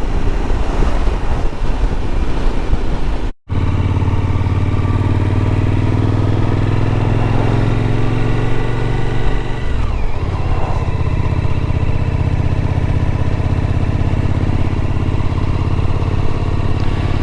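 Suzuki V-Strom motorcycle engine running under way, the engine note rising slowly and then dropping briefly about ten seconds in before settling steady. There is a short break about three seconds in.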